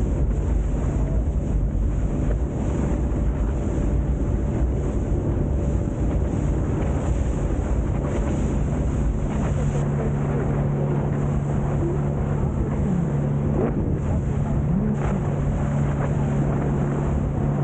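A boat's engine running steadily at cruising speed, a low hum with wind buffeting the microphone and the rush of water over it.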